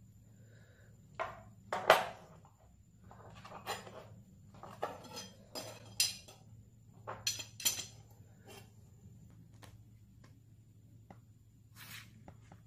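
Brass bolster pieces handled and set against a steel knife tang on a hard tabletop: a run of light metallic clicks and clinks, thickest in the first eight seconds, the loudest about two seconds in. A steady low hum runs underneath.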